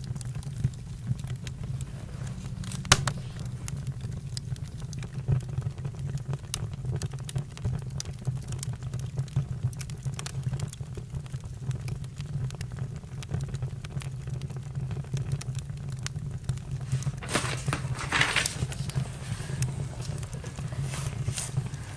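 Campfire crackling, with irregular sharp pops over a steady low rumble; one louder pop about three seconds in and a quick run of crackles about eighteen seconds in.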